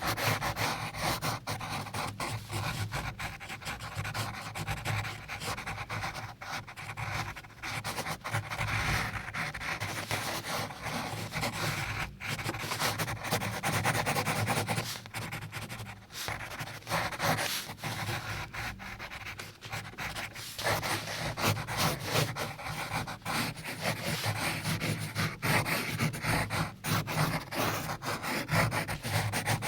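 Pencil drawing on paper: the graphite scratching and rubbing in quick, uneven strokes, on and on without a break.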